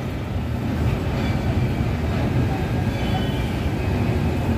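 A train crossing the bridge overhead, a steady low rumble.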